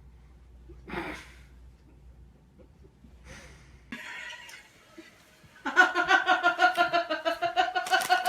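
A person laughing hard in rapid, high-pitched, evenly pulsing bursts, starting a little past halfway through. Before that there is only a faint low hum and a few brief soft sounds.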